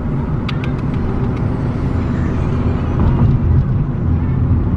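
Steady road and engine rumble inside the cabin of a moving Kia car, with a few light clicks about half a second in.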